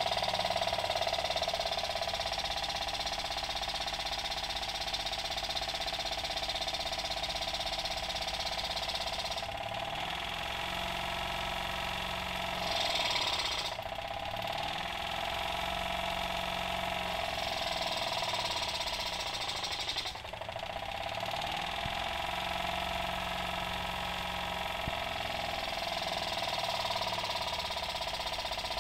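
A homemade tin-can Stirling engine runs at speed, making a continuous fast mechanical running noise. The sound changes a few times as the air valve that regulates its speed is worked.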